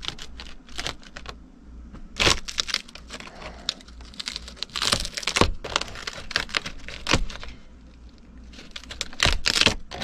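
Irregular small clicks, crackles and rustles of a hand pulling at brittle, water-damaged ceiling paneling and debris in an opening. Near the end, a few quick squirts from a trigger spray bottle.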